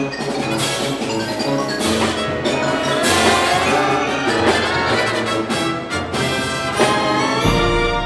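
Wind band playing, with mallet percussion (marimba, glockenspiel, chimes) struck repeatedly and ringing over the sustained winds. A deep bass note enters near the end.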